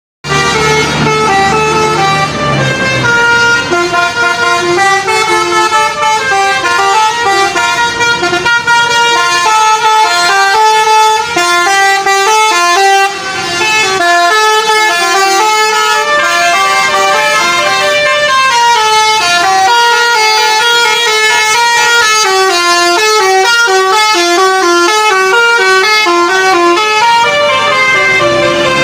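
Basuri V3 telolet horn on a bus, several horn tones sounding together and playing a fast melody of short stepped notes. It goes almost without pause, with one brief break about 13 seconds in.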